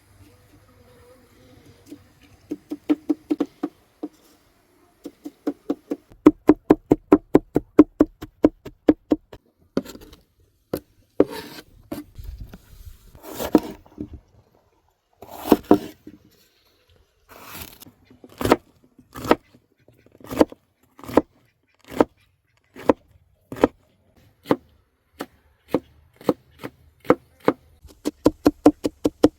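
A knife chopping food on a cutting board, in fast runs of about six strokes a second, with slower single cuts about a second apart in the second half.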